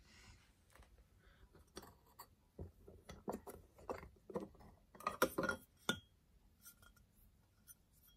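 Light, irregular clicks and clinks of the BM-51-2 stereo microscope's round stage plate being handled in its metal base, busiest between about two and six seconds in.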